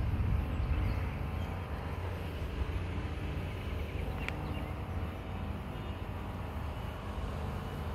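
Steady low rumble of an engine running, with a brief high click about four seconds in.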